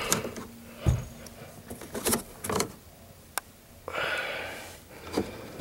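Scattered clicks, knocks and rustling of hands handling thermostat low-voltage wiring and its connector at a flooded condensate pan.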